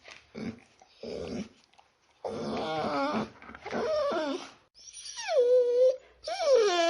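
Dog whining: a string of high-pitched whimpers and whines. Several slide down in pitch or waver, and they grow louder, with the longest and loudest near the end.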